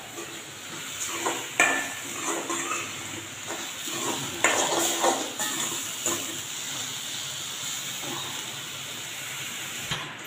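Steel spoon stirring and scraping a thick dried-fish, onion and tomato masala in an aluminium pot, with a light sizzle and a few sharp clinks of the spoon against the pot.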